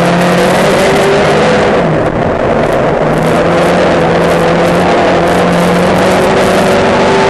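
Thunder Saloon race car's engine heard from inside the car, running hard at high revs with a steady note. About two seconds in it eases briefly off the throttle, then pulls hard again.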